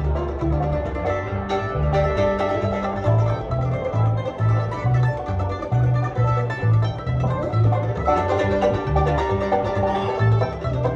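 Live acoustic bluegrass instrumental: a five-string banjo and a mandolin picking together over an upright bass plucking a steady note-by-note bass line, about two notes a second.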